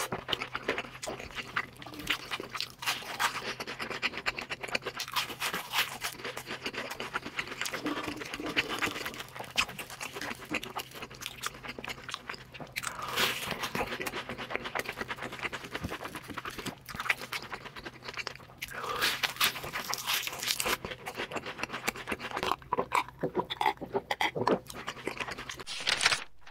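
Close-miked crunching and chewing as a person bites into and eats crispy batter-fried shrimp, a dense crackle of crunches that cuts off abruptly at the end.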